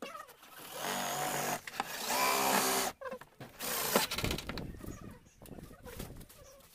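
Cordless drill whining in two runs of about a second each as it drills into a rear spoiler mounted on a car's tailgate. Quieter clicks and knocks follow, with a sharp knock about four seconds in.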